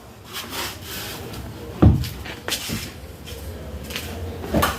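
Handling noise: rubbing and scraping against wood or carpet, with two dull thumps, one about two seconds in and one near the end.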